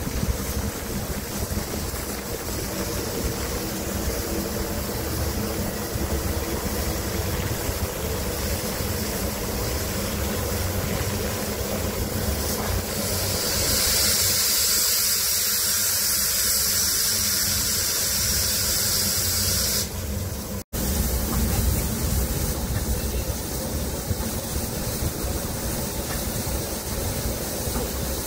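Steam express locomotive 01 509 (DR class 01.5) hissing steam from its open cylinder drain cocks over a steady low rumble as it moves slowly. A much louder, high hiss of escaping steam starts about halfway through and cuts off sharply some seven seconds later.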